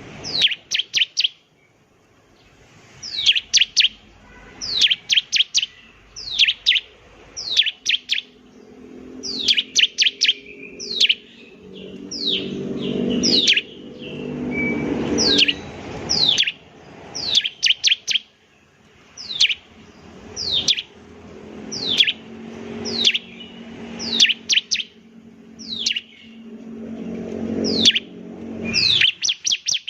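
Bar-winged prinia (ciblek) singing: quick bursts of two to five sharp, downward-sweeping high notes, repeated every second or two. A low hum swells and fades underneath.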